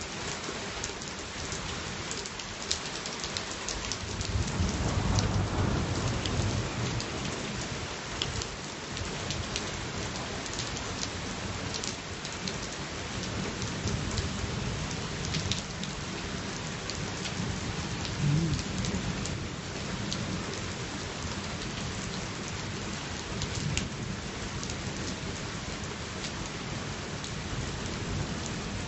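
Steady rain hissing, with single drops clicking sharply. A low roll of thunder swells about four seconds in and dies away over a few seconds.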